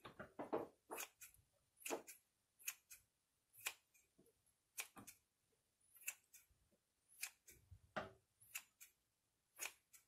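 Kitchen scissors snipping through raw marinated chicken breast: a dozen or so faint, sharp snips at an uneven pace of about one a second.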